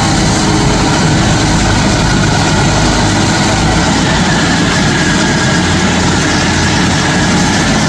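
Stump grinder running, loud and steady, its engine rumbling under a dense noise of the machine at work.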